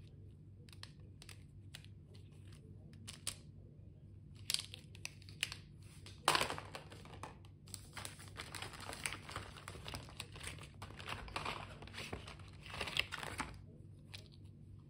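Plastic stationery packaging crinkling as it is handled, after a few light clicks of pens knocking together. The crinkling is densest and loudest in the middle, with one sharp crackle as it starts, and stops about a second before the end.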